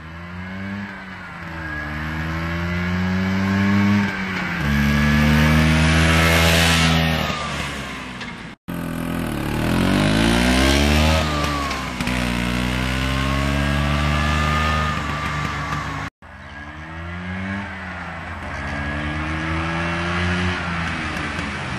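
1963 Vespa GL scooter's two-stroke single-cylinder engine accelerating past: its pitch climbs, drops sharply as it shifts up, and climbs again, then falls away as the scooter goes by. Twice the sound cuts out for a moment.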